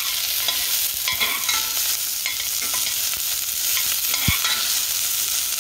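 Chopped onion and garlic sizzling in hot oil in a stainless steel pot, with a utensil scraping through them and knocking once against the pot about four seconds in.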